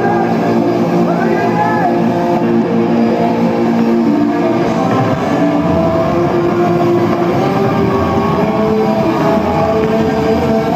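Concert crowd cheering and clapping as a rock song ends, a loud steady roar with a few long held tones and pitched shouts running through it.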